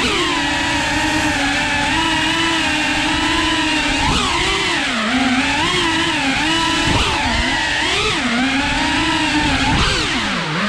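Whoop FPV drone's motors and ducted propellers whining, the pitch rising and falling with the throttle. It drops sharply several times, most deeply near the end.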